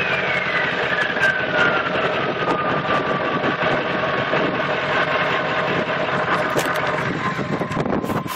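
1997 Ford F-250's 7.3 L Power Stroke V8 turbo diesel running, its turbocharger whistle falling in pitch over the first few seconds as the engine drops back from a rev, then holding a steady high whistle at idle.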